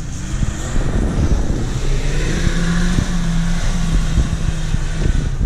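Off-road 4x4's engine running hard under load as its tyres churn loose gravel and dirt on a steep slope. The engine note steps up about two seconds in and then holds steady.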